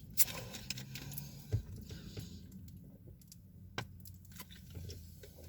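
A person chewing a peanut butter snack bar with whole peanuts in it, with a few short sharp clicks and crunches between quieter chewing.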